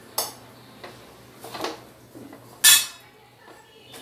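Steel spatula and cookware clinking on a gas stove: three sharp metal clinks, the loudest a little before three seconds in.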